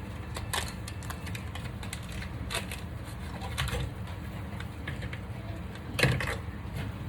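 Cheese being grated by hand on a cheese grater: irregular scraping strokes and clicks, the loudest a little after six seconds in.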